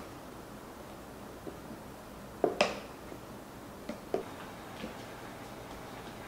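Light knocks and clicks of a plastic container against a stainless steel mixing bowl as flour is poured in. A close pair of sharp knocks comes about two and a half seconds in, then a few fainter clicks.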